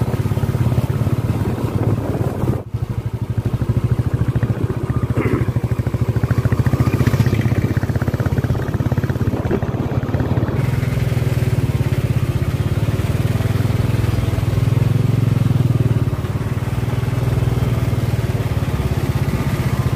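A vehicle engine running steadily at an even pace, with a brief drop in level between two and three seconds in.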